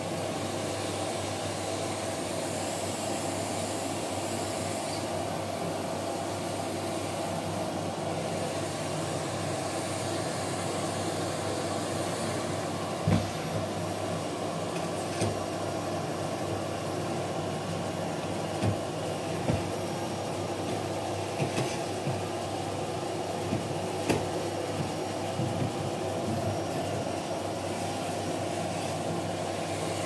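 Vacuum cleaner running with a steady drone, with a few short knocks in the second half.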